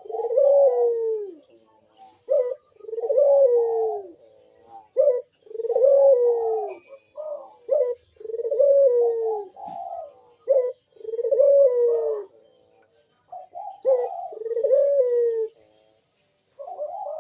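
Puter (Barbary dove) cooing in its repeated 'bekur' song: each round is a short note and then a long coo that falls in pitch, about every three seconds.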